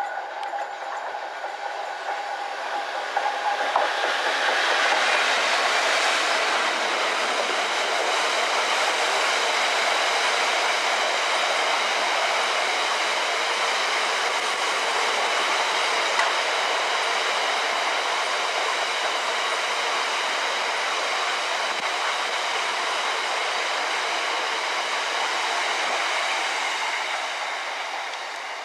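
Freight train headed by a Class 66 diesel locomotive passing close by, followed by a long rake of aggregate box wagons rolling past on the rails with a steady high ringing note. The sound builds over the first few seconds, holds, and begins to fade near the end as the last wagons draw away.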